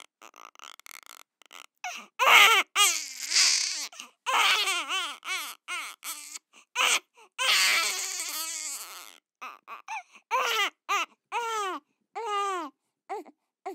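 A baby crying: several long cries in the first half, then a run of shorter, quicker cries toward the end, each broken off by sudden silence.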